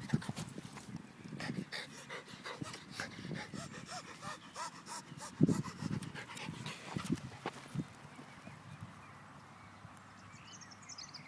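A dog panting and snuffling close to the microphone, with scattered clicks and knocks and one louder thump about halfway through. It dies down over the last few seconds.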